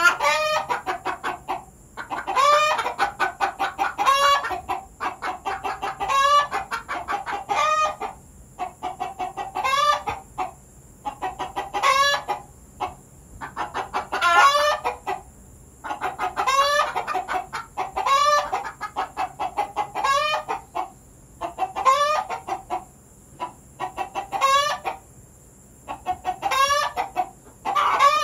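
Domestic hens clucking and cackling in loud bursts that repeat about every two seconds: a quick run of clucks, then a drawn-out rising-and-falling cackle.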